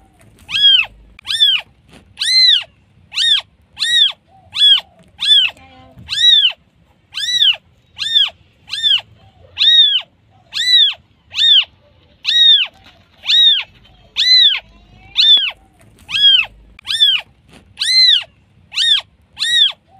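Newborn kitten calling for its mother: short, high-pitched meows, each rising and falling in pitch, repeated about one to two times a second without a pause.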